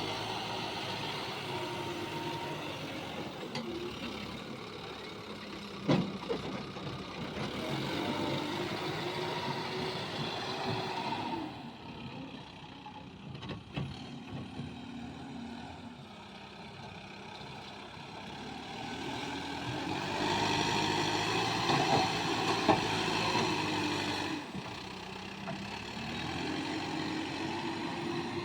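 Heavy diesel engine running, its pitch rising and falling under load several times over, with a sharp knock about six seconds in and a few lighter clanks later.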